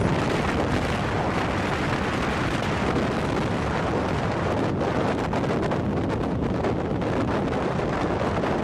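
Steady rush of wind buffeting the microphone on a motorboat under way, with gusts flickering through it around the middle.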